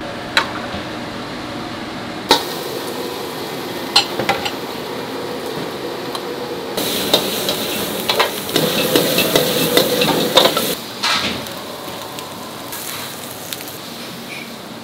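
Commercial kitchen cooking: sharp metal knocks of utensils against pans over a steady frying sizzle. The sizzle and clatter swell louder for a few seconds past the middle, then settle back.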